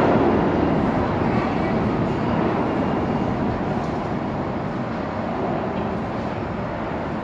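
New York City subway trains running into the station: a steady rail rumble that dies away gradually.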